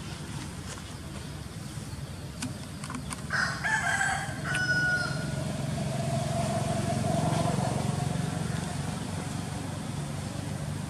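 A rooster crowing once, starting about three seconds in and ending in a long held note, over a steady low background hum.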